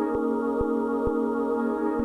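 Ambient trap instrumental at 130 bpm: sustained chords held steady, with a light tick on each beat, about two a second.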